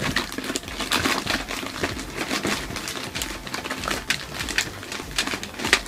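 Blind-bag packets crinkling and rustling as a hand rummages through a bucket full of them, in irregular small crackles.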